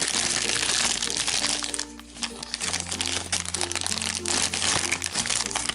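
Plastic or foil packaging of a blind-bag toy crinkling and crackling as it is torn open, most busily in the first couple of seconds, over background music.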